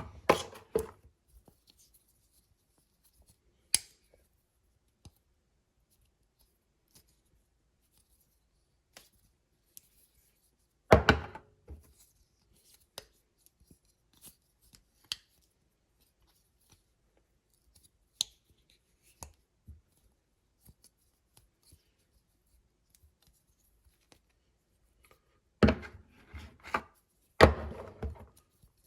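Scattered clicks and knocks from handling a magnetic ring phone holder and its packaging, with long quiet gaps between. There is a cluster of louder knocks about 11 seconds in and two more near the end.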